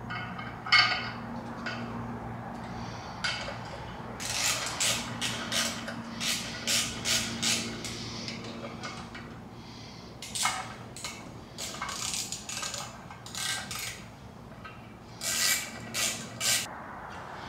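Hand ratchet clicking in short runs, about three strokes a second, as bolts are driven into an aluminium timing cover on an LS V8 block. A low steady hum sits underneath for the first half.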